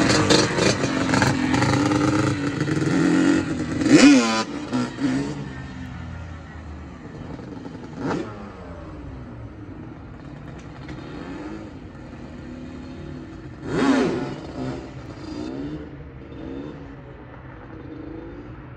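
Yamaha Banshee quad's two-stroke twin engine running close by and revved hard about four seconds in. It then moves off and runs quieter, with short revs from farther away about eight and fourteen seconds in.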